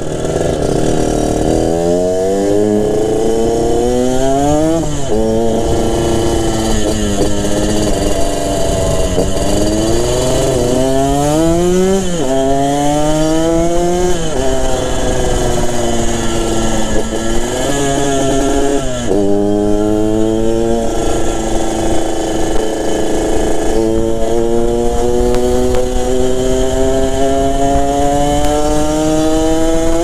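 Yamaha RX-King's two-stroke single-cylinder engine through a B2M racing exhaust, under way: the engine note climbs and drops several times as the rider accelerates through the gears and eases off, ending in a long steady climb over the last few seconds.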